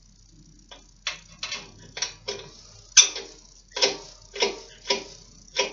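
A run of sharp metallic clicks, roughly two a second, as the screw plug holding the Zündfix igniter fuse is turned in hand-tight on the head of a Berning Di7 single-cylinder diesel.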